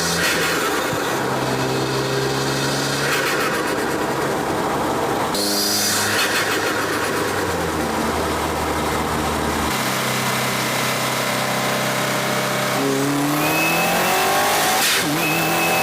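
Subaru WRX's turbocharged FA20DIT flat-four heard from inside the engine bay while driving, mostly direct-injection ticking. The engine note climbs under throttle and drops at each shift several times, with brief rushes of turbo flutter on lift-off around the middle and near the end.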